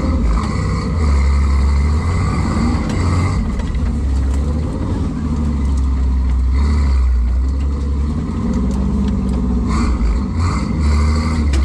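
Rock-crawler engine working at low speed on a trail, its revs swelling and easing off several times, with a few sharp knocks near the end.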